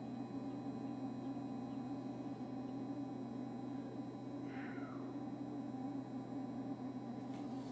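KitchenAid KRFC704FSS00 refrigerator compressor giving a constant, steady low buzz, the fault that appeared after a service call. A brief high chirp slides downward about halfway through.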